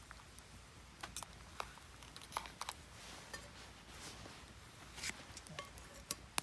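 Wood fire crackling in a Picogrill fire pit: irregular sharp pops and snaps, several close together between about two and three seconds in.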